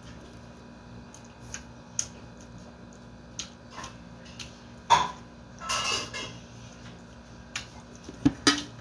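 Eating sounds from a meal of rice eaten by hand off a plate: scattered light clicks and clinks on the plate, the sharpest about five seconds in and twice near the end.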